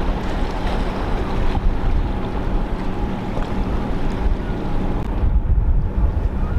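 Wind rumbling on the microphone over a steady drone of boat engines and the wash of water.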